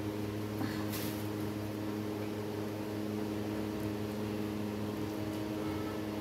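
Steady low machine hum with a faint click about a second in.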